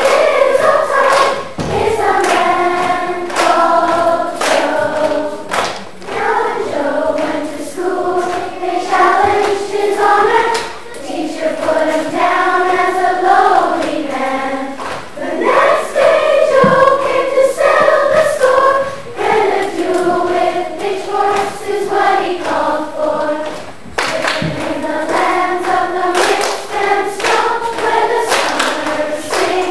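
A children's choir singing a song in unison, with sharp hand claps along with it.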